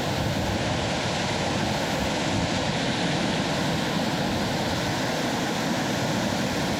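Underground waterfall pouring down inside a mine chamber: a loud, steady rush of falling water heard from close by, in spray range.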